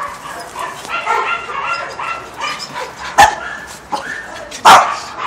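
Several dogs barking and yapping in short, overlapping calls. Two loud, sharp sounds stand out: one about three seconds in and a louder one near the end.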